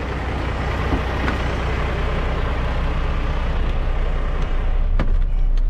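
Isuzu Giga concrete mixer truck's 14,250 cc diesel engine idling steadily, with two sharp clicks near the end.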